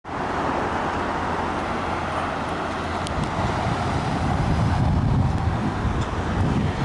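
Steady engine rumble and traffic noise, the low rumble growing heavier about four seconds in.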